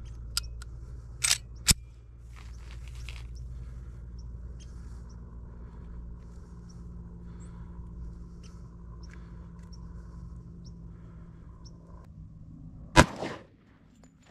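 A single .45 ACP pistol shot from an Astra A80 near the end, firing a 230-grain +P Hornady XTP round. Near the start there are a few sharp clicks as the pistol is handled. A steady low background rumble runs underneath.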